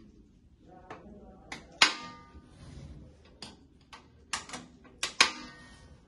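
Stainless steel pot lid and its clip latches being handled and snapped shut: a series of sharp metallic clicks and clanks, two of them loud with a brief ringing after, about two and five seconds in.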